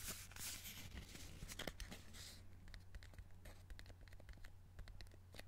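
Fingertips and nails tapping and scratching on a paperboard pack of Extra chewing gum held close to the microphone: scattered faint clicks with a couple of soft rustles, one near the start and one about two seconds in.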